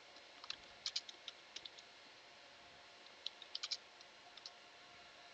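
Computer keyboard keystrokes clicking in two short runs of typing, one about half a second in and another about three seconds in, over a faint steady hiss.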